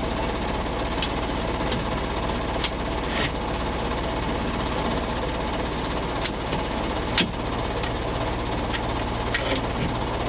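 A vehicle's engine running steadily, heard from inside the cabin, with a scattering of short sharp clicks, the loudest about seven seconds in.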